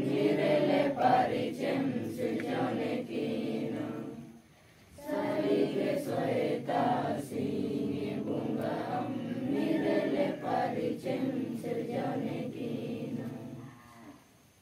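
A group of men and women singing a devotional chant together, with a short break about four seconds in, fading out near the end.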